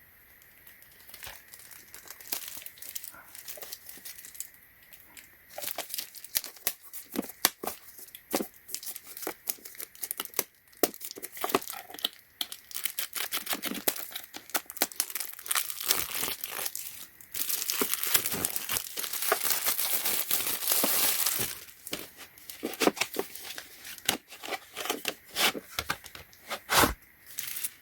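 Packaging crinkling and crackling as it is handled and pulled off a tool set's carrying case, with a longer tearing sound about two-thirds of the way through.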